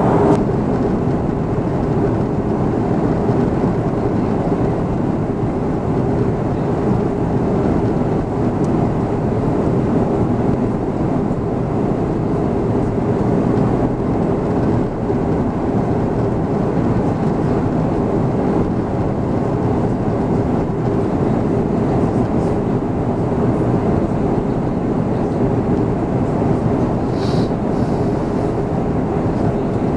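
Steady cabin noise inside an Airbus A340-600 in flight: the drone of its Rolls-Royce Trent 500 engines and the rush of air past the fuselage, with a steady hum running through it. A brief faint high sound comes about 27 seconds in.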